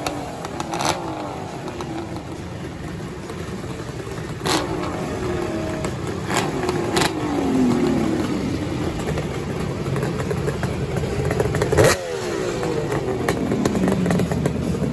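Several vintage two-stroke motorcycle engines, Kawasakis among them, running and being revved up and down, with a few sharp cracks, the loudest about twelve seconds in.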